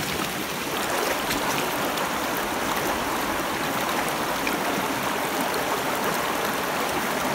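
Shallow, clear river flowing over stones and riffles: a steady, even sound of running water, picked up close to the surface.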